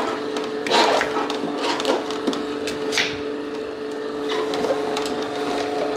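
Vertical slow juicer's motor running with a steady hum as apple pieces are fed in, with a few short crunches and knocks from the apples being crushed and cut on a wooden board, the loudest about a second in.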